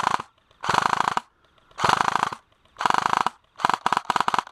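Airsoft rifle firing short full-auto bursts of rapid shots, about one a second, with the last burst chopped into several quick strings.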